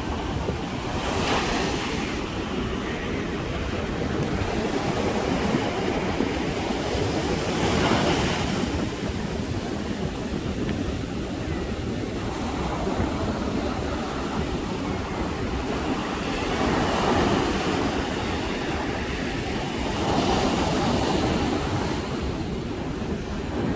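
Sea waves breaking on a sandy beach: a continuous wash of surf that swells louder every few seconds as each wave breaks and runs up the shore.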